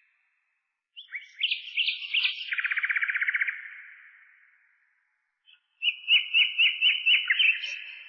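Songbird singing two phrases: the first, about a second in, a jumble of varied notes running into a fast trill; the second, near the end, a quick run of repeated sliding notes, about five a second. Each phrase trails off slowly.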